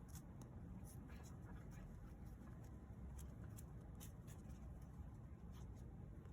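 Faint, irregular scratching and rustling with small clicks over a low steady rumble.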